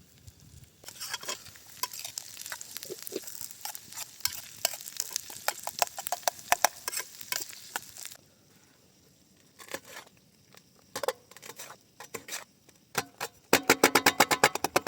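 Food sizzling in a pan while being stirred, a crackling hiss full of small scraping clicks for about seven seconds. Then come a few scattered clicks, and a fast, regular clatter near the end.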